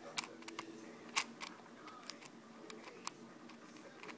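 Plastic pieces of a new Shengshou 6x6 cube, slick with factory lubricant, clicking as its layers are turned by hand. The clicks come irregularly, with one sharper clack about a second in.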